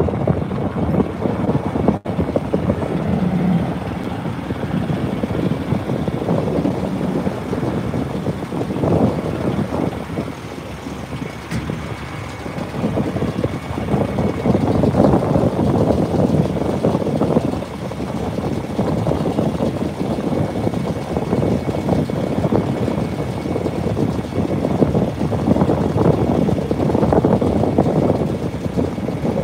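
Wind gusting on the microphone over the low, steady idle of a semi truck's diesel engine.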